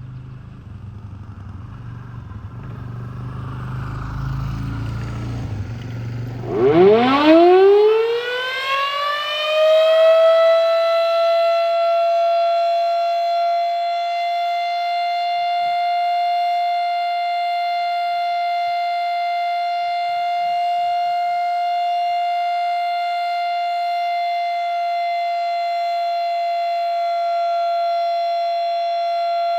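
Federal Signal Model 5 electromechanical warning siren starting up. Its tone glides steeply upward over about four seconds, then settles into one steady, loud wail held on a single pitch. A low rumble underneath dies away as it starts; the recorder thinks the siren sounds a little sick and needs new bearings.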